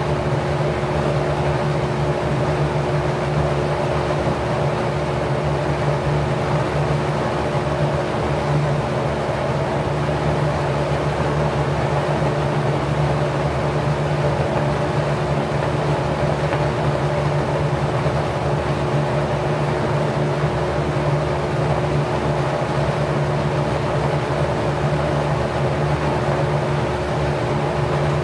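Packard 99319 1/5 hp single-speed electric motor spinning a 20-inch four-blade LAU propeller at its 1050 rpm: a steady motor hum under an even rush of air from the blades.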